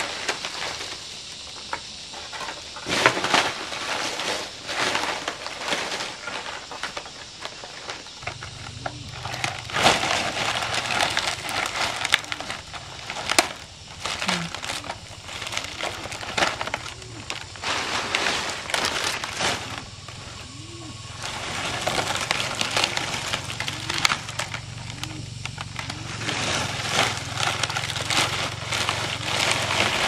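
Dried palm leaves crackling and rustling as they are handled, bundled and folded into thatch, with many sharp, irregular crackles. From about eight seconds in, a low steady hum runs underneath.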